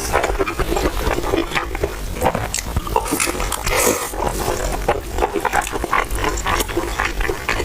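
Crunching and chewing of a crispy, paper-thin stuffed pie: many quick crisp crackles with wet mouth noises.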